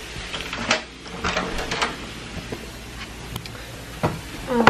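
A string of clicks and knocks as a front door and its storm door are unlatched and pushed open, with handling noise in between.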